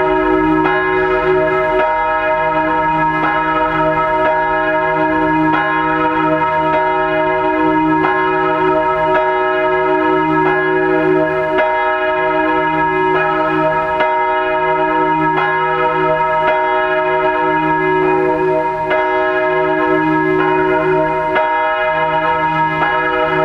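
The Reformationsglocke, a 1,543 kg Rincker bronze church bell tuned to E-flat (es′), swinging in the tower for the pre-service ringing. It strikes in a steady, even rhythm, each stroke ringing on into the next over a deep, sustained hum.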